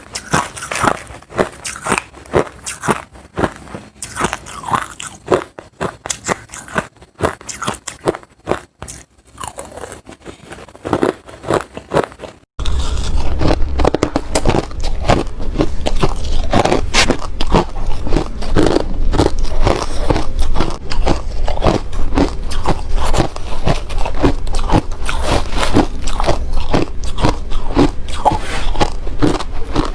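Crushed ice being bitten and chewed close to the microphone: rapid, irregular hard crunches. About twelve and a half seconds in, the audio cuts to a louder passage with denser crunching over a steady low hum.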